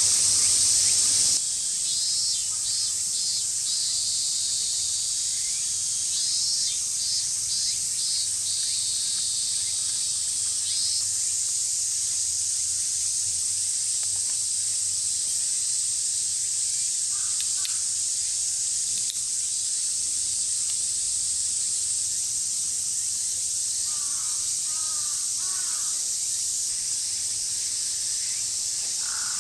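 Outdoor summer ambience: a steady high-pitched insect chorus, with crows cawing several times in the second half, the clearest run about two-thirds through. Short chirping calls come in twice early on, with a small drop in overall level about a second in.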